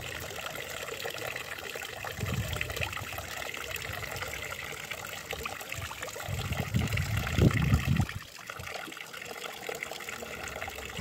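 Thin stream of water trickling steadily from a stone fountain's spout into its stone basin. Low rumbles come about two seconds in and, louder, from about six to eight seconds in.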